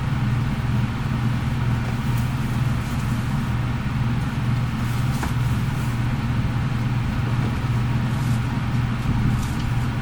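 Steady low engine and road hum, as heard inside a car, with a few faint crackles on top.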